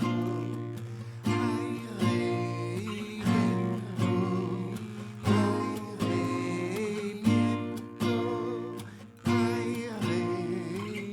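Acoustic guitar strummed in a steady rhythm, about one strum a second, each chord ringing and fading, with a voice singing over it.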